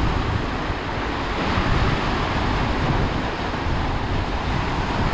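Small ocean waves washing in over a flat rock shelf, with wind rumbling on the microphone.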